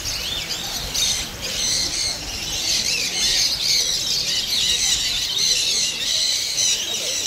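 Many parrots calling at once: a dense, unbroken chatter of short, high chirps and screeches.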